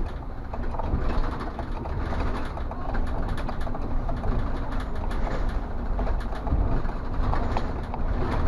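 City bus driving along a street, heard from the driver's cab: a steady low engine rumble and road noise, with many small rattles and clicks from the bodywork.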